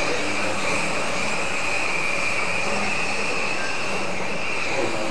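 Several electric radio-controlled mini racing cars running laps on a carpet track: a steady high-pitched whine of motors and gears over an even hiss.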